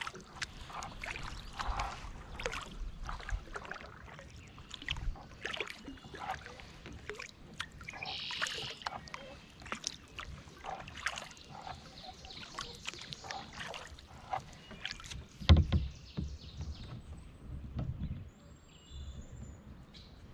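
Kayak paddling: the paddle blades dip and splash in the water stroke after stroke, with water dripping off the blades. A single louder thump comes about three-quarters of the way through.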